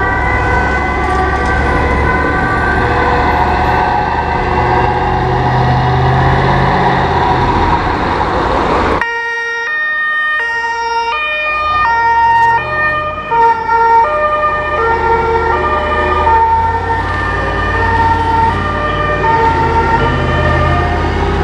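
German two-tone fire-engine sirens (Martinshorn), alternating between a high and a low note, with a low engine rumble underneath. At first several sirens overlap; about nine seconds in the sound changes abruptly to one siren up close, its two notes stepping clearly back and forth.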